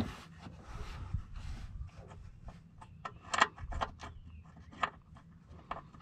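A nut being threaded by hand onto a car battery's terminal clamp: scattered small metal clicks and scrapes, the sharpest about three and a half seconds in and again near five seconds, over a low steady rumble.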